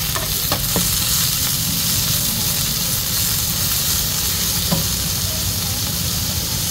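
Bean sprouts and greens sizzling steadily in oil on a large shallow steel pan. A metal spatula scrapes and taps against the pan a couple of times near the start and once more about two-thirds of the way through.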